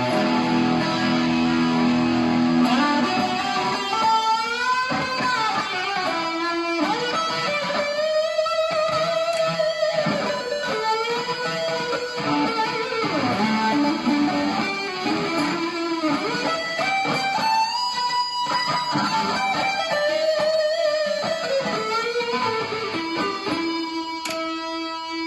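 Firefly FFLPS Les Paul-style electric guitar played through an Orange amp with distortion. It opens on held notes for about three seconds, then moves to lead lines full of string bends and vibrato, and ends on a long held note.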